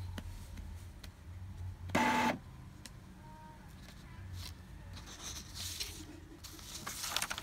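Epson L3150 inkjet printer working through a print-head cleaning cycle, its mechanism running with a steady low hum. A short, louder mechanical buzz comes about two seconds in, and rushing, hissing noises near the end.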